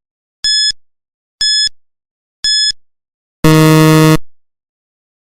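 Quiz countdown timer: three short, high electronic beeps about a second apart, then a longer, lower and louder buzzer about three and a half seconds in, marking the end of the answer time.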